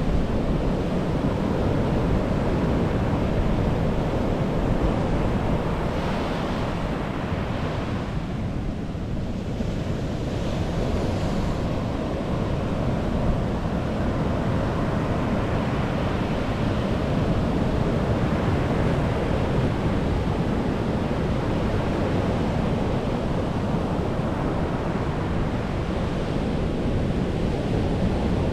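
Steady low rushing noise, with a slight lull about a third of the way in.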